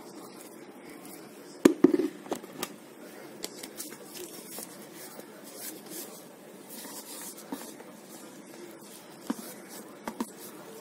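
Kitchen handling sounds as grated onion is tipped from a plastic tub into a glass dish of minced meat: a couple of sharp knocks about two seconds in, then scattered light clicks over a low room hiss.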